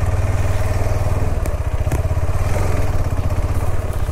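Motorcycle engine running steadily at low revs, with an even, rapid beat of firing pulses.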